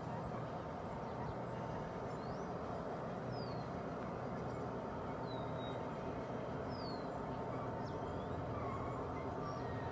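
A G-scale model freight train rolling along outdoor track, a steady running noise with a faint constant tone. Birds give several short sliding chirps over it.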